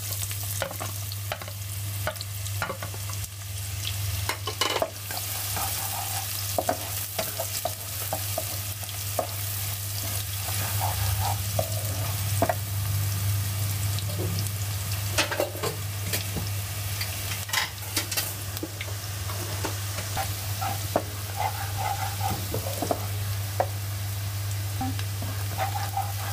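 Chopped onions sizzling as they fry in hot ghee, stirred with a spatula that scrapes and taps against the pan now and then. A steady low hum runs underneath.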